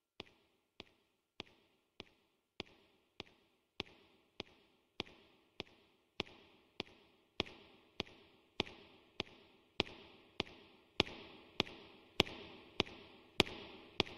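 A sharp percussive click repeats evenly, about 1.7 times a second, each hit followed by a short hissing decay. The hits grow steadily louder through the passage, like a ticking beat building up in the song's backing track.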